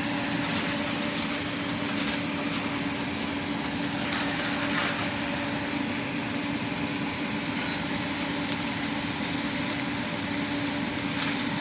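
Small fish frying and sizzling in a pan, over a steady mechanical hum.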